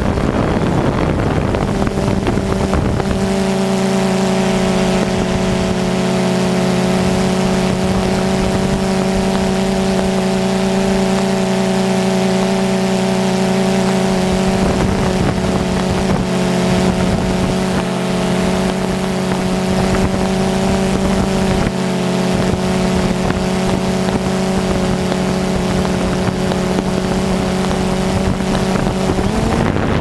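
DJI Phantom 2 quadcopter's four electric motors and propellers heard from the GoPro on board: a steady, several-toned hum over the rush of air from the props. The pitch wavers for the first few seconds, then holds even.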